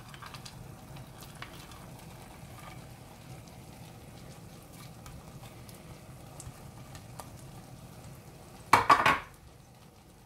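Sweet vermicelli simmering with a low, steady sizzle in a steel pan while dried nuts and coconut slices drop onto it with faint ticks. About nine seconds in, a brief loud clatter of crockery.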